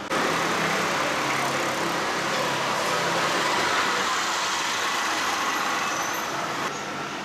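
Street traffic noise: a motor vehicle running close by with road hiss, steady, easing off near the end.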